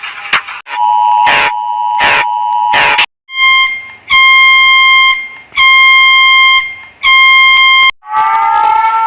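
A run of emergency alert broadcast tones. It opens with a steady two-tone attention signal crossed by three short noisy bursts, then four long harsh beeps about a second each, then a tone that rises in pitch near the end.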